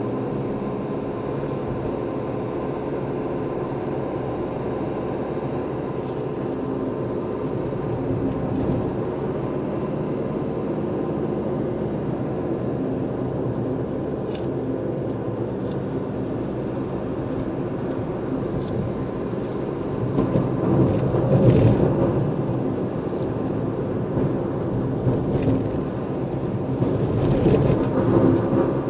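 A car driving, heard from inside the cabin: steady engine hum and tyre noise. It swells louder about two-thirds of the way through and again near the end as oncoming cars pass close by.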